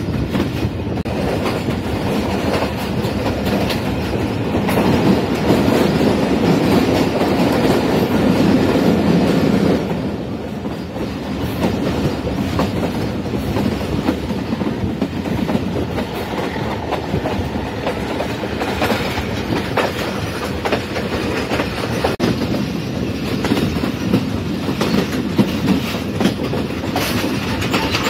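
Moving passenger train on the Pakistan Railways Thall Express: a steady rumble with wheels clattering irregularly over the rail joints. It grows louder for a few seconds, then eases slightly about a third of the way in.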